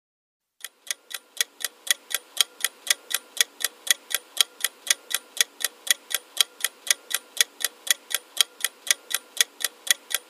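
Countdown clock ticking sound effect, about four even ticks a second, starting about half a second in: the quiz's answer timer running down.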